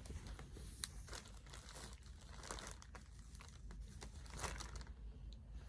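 Faint crinkling and rustling from merch and its packaging being handled, with scattered small crackles.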